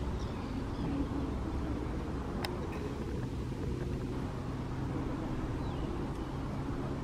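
Steady low rumble of distant motor traffic, with a few faint high chirps.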